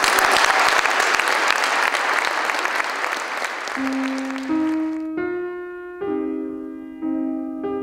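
Audience applauding, then about four seconds in the clapping fades as piano music begins, single notes and chords struck roughly once a second.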